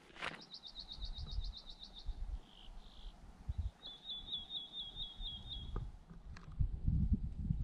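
A small songbird singing two rapid, high trills of repeated short notes, each lasting about two seconds, with a pause between them. Irregular low thumps of a hiker's footsteps run underneath and get heavier near the end.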